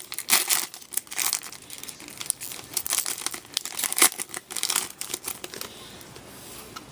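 Crinkling and rustling of trading cards and their packaging being handled, a quick run of small crackles that dies down about six seconds in.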